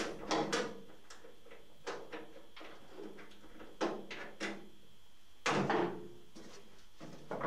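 Irregular metallic clicks and clunks of a wrench working the bolts on the boot hatch hinge, with a louder clatter about five and a half seconds in.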